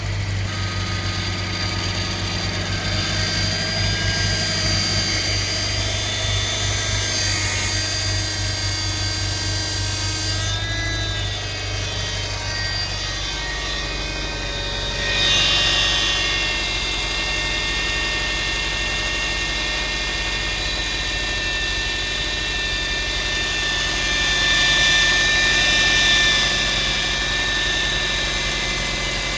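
Faulty power steering pump on a GRB Subaru Impreza whining over the engine just after start-up: several steady whining tones. The tones shift about ten to fifteen seconds in, and the sound swells briefly about fifteen and twenty-five seconds in. The noise is said to be a common trouble on this model, and the pump needed replacing.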